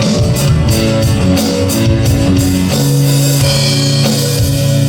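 Live worship band of drums, electric guitar and bass playing the instrumental outro of a song, with a steady drum beat at first and then a held chord ringing out from about three seconds in: an ending the players call kind of funky.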